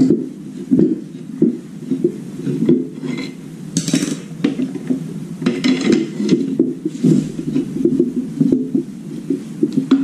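Small metal hand tools and wires being handled: irregular clinks, knocks and short scrapes, with a brief rustle about four and six seconds in.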